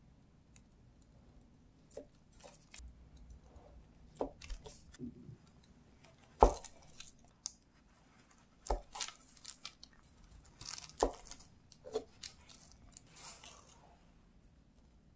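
Kitchen knife cutting through a rolled, sugar-dusted orange agar jelly: soft squishy, crackly slicing with the blade knocking down on the cutting surface at each cut, the sharpest knock about six and a half seconds in.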